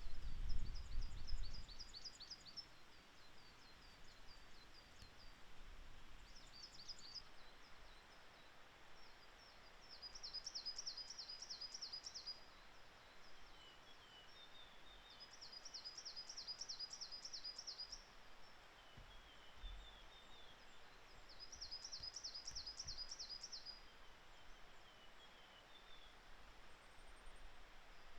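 Coal tit singing: five phrases of rapid, evenly repeated high two-part notes, each phrase lasting about two seconds with a few seconds' pause between. Fainter, lower chirps fall in the gaps, and a low rumble fades out in the first two seconds.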